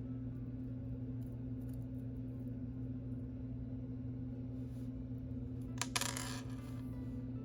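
Small handling clicks over a steady low hum, then about six seconds in a sharp click and a brief metallic jingle of a CZ bracelet's links and clasp rattling as it is handled or set down.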